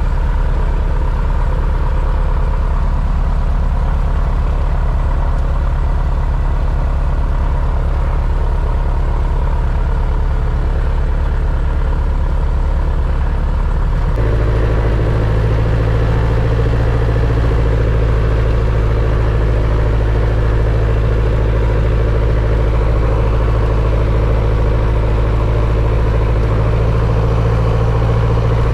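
Two-seat light aircraft's piston engine and propeller running at low power, heard from inside the cabin as a steady drone. About halfway through the note steps up and gets a little louder as power is added and the plane taxis.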